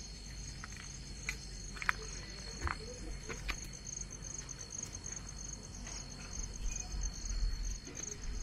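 Insects calling steadily in a high, pulsing trill over a low rumble, with a few scattered clicks.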